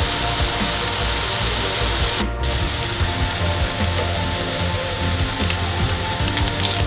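Food frying in oil in a pan: a steady sizzling hiss with scattered crackles, broken off briefly about two seconds in, over background music.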